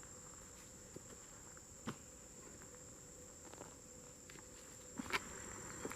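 Insects trilling in one steady, unbroken high-pitched tone, faint in the background, with a few faint knocks about two seconds in and near the end.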